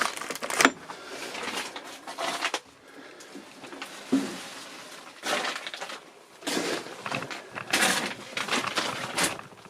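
Footsteps crunching and scuffing over debris and clutter on the floor, in irregular bursts with louder patches in the second half.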